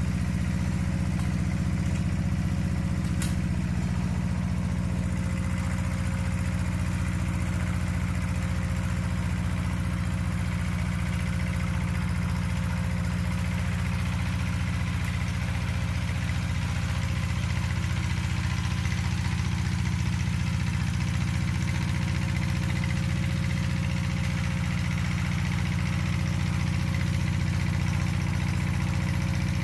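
Walk-behind two-wheel power tiller's single-cylinder diesel engine running steadily.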